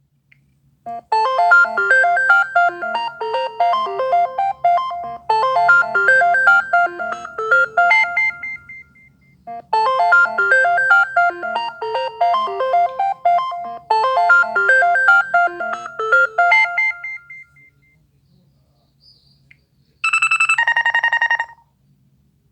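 Classic LG ringtone played on a smartphone's speaker: a bright, bell-like electronic melody in four phrases of about four seconds each, two of them ending on a held high note. After a short pause, a separate two-note chime, high then low, sounds near the end.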